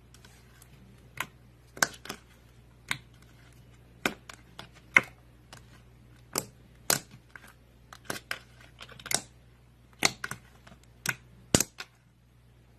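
Slime being squeezed and poked by hand, giving irregular sharp clicks and pops as trapped air bursts, some loud, with a faint steady hum beneath.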